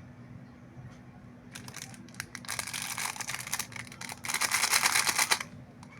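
Plastic candy packaging crinkling and being torn open by hand: a run of crackling that starts about a second and a half in and is loudest and densest near the end.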